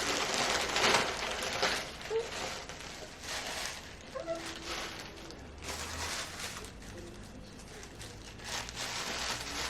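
Packaging rustling and crinkling in irregular bursts, loudest in the first two seconds, as a wig is handled and taken out of its package.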